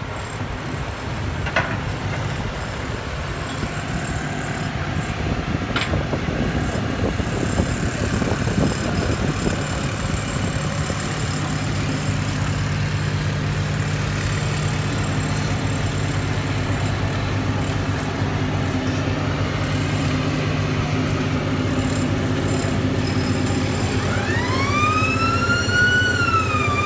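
Heavy earthmoving machinery engines running in a steady low drone, which grows louder and steadier about ten seconds in. Near the end a siren starts, wailing up and down in pitch.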